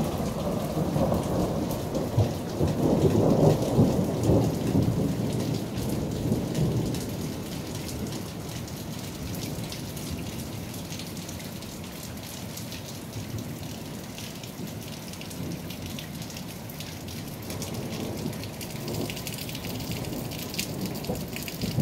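Hail and rain falling hard, a dense steady patter of many small ticks. Over the first several seconds a low rolling rumble of thunder swells and then fades away.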